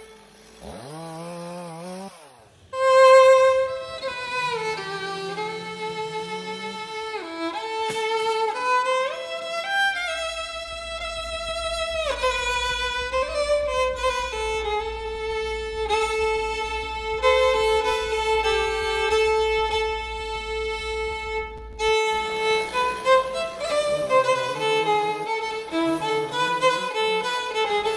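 Violin playing a lively melody with sliding notes as background music.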